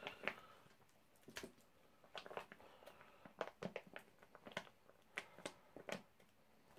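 MRE retort pouch crinkling in the hands as rice and beans are squeezed out of it, a string of faint, sharp crackles.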